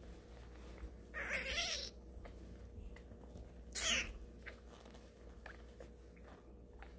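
Newborn kitten mewing: two high, wavering cries, the first a little under a second long about a second in, the second shorter just before the four-second mark.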